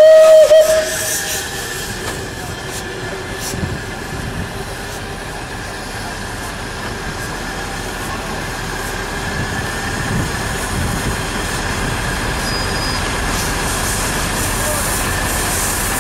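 Zillertalbahn narrow-gauge steam locomotive sounds a short, loud whistle blast right at the start, then runs with a steady hiss and rumble as it moves off through the yard.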